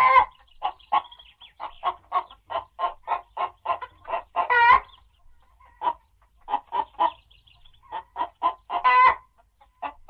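Chicken clucking, given as a lyrebird's mimicry of a chook: a run of short clucks, about three a second, broken by two longer squawks about four and a half and nine seconds in.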